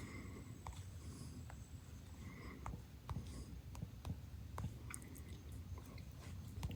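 Faint, irregular light taps, about eight of them, from fingers tapping a phone touchscreen while typing a search, over a low steady hum.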